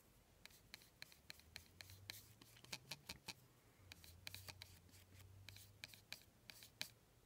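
Faint, irregular ticks and scratching of a flat paintbrush dragging acrylic paint across a thin clear PVC sheet.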